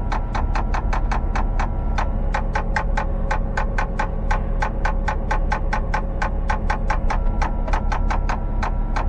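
Background music made of quick, short ticking notes in an uneven rhythm, over a steady low hum.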